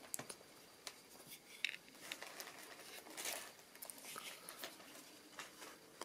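Faint handling noise: fingers rubbing on a Victorinox WorkChamp pocket knife and its tools, with a few soft scattered clicks.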